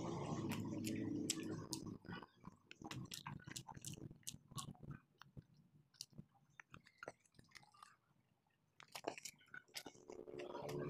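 Close, wet chewing and mouth clicks of a child eating cabbage omelette and rice, in irregular small smacks. A steady background noise fades out about two seconds in, and the chewing pauses briefly near the end.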